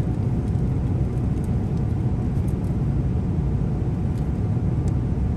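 Steady cabin noise of a Boeing 777-300ER in cruise: an even, low rumble of engines and airflow heard from inside the passenger cabin.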